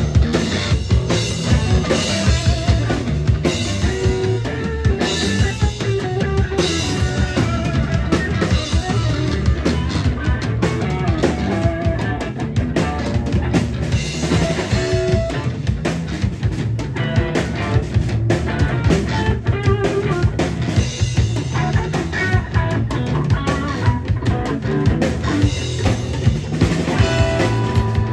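Rock band playing: a steady beat on the drum kit under electric guitar.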